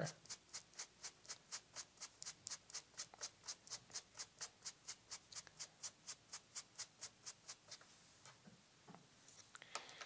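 A small hairbrush's bristles scratching through wet-painted faux fur in quick, even strokes, about five a second, brushing against the direction of the fur to lift the hairs so they dry standing up. The strokes stop about eight seconds in.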